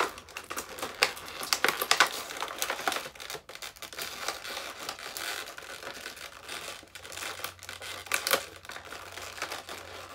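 Clear plastic blister tray crinkling and crackling in irregular clicks as hands pull and pry at it to free an action figure from its packaging.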